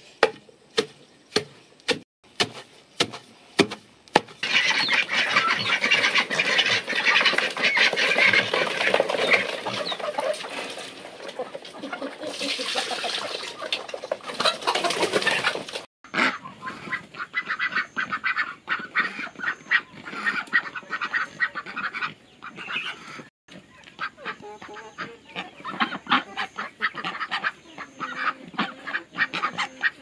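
A few sharp strikes about two a second, then a flock of poultry calling, many birds at once in a dense clamour that breaks off briefly about halfway through and starts again.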